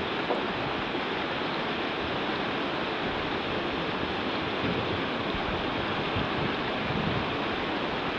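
Steady rushing of a fast whitewater river's current.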